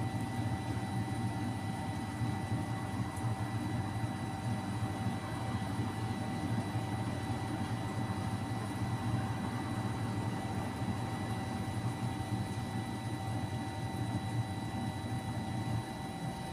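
Steady low mechanical hum with faint constant whining tones above it, unchanging throughout.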